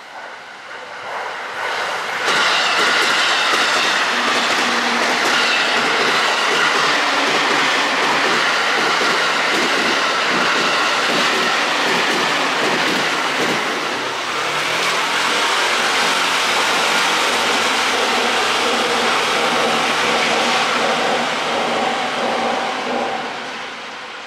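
Train passing on the railway tracks directly overhead, a steady rumble and clatter of wheels that swells in about two seconds in, holds for some twenty seconds and fades near the end, heard from inside the concrete underpass beneath the line.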